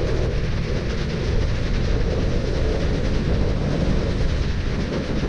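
Strong wind buffeting the microphone: a steady low rumble with a rushing hiss over it.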